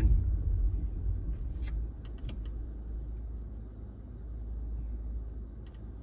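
Car rumble heard inside the cabin. It fades over the first two seconds as the car slows to a stop, then settles to a quieter, steady rumble while the car stands.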